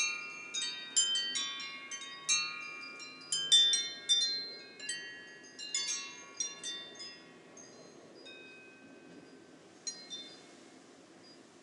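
Several wind chimes of different pitches ringing in the wind, clusters of struck metallic tones that ring on and fade; the ringing is busy at first, thins out about seven seconds in, and a last single strike comes near the end, over a faint steady rush of wind.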